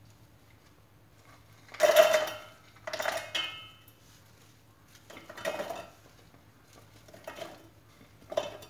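Ingredients and plates clattering against a stainless-steel mixer-grinder jar as onions, cashews and spices are tipped in. There are five separate clattering knocks with a short metallic ring, the loudest about two seconds in, and the rest come about one to two seconds apart.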